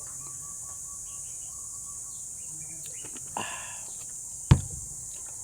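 Steady high chirring of insects, with a brief noisy scrape a little past three seconds and a single sharp knock about four and a half seconds in, the loudest sound.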